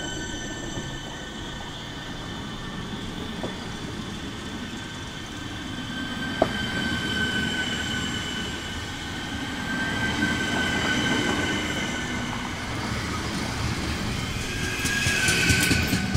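Czech Railways class 641 RegioPanter electric multiple unit running past, its electric drive whining in several steady high tones over the rumble of its wheels on the rails. There are two sharp clicks from the wheels, and the noise grows rougher and louder near the end.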